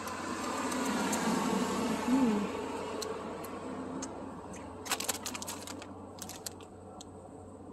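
A passing vehicle's noise swells over the first two seconds and slowly fades. About five seconds in, a foil snack bag crinkles in a short run of sharp clicks as it is handled.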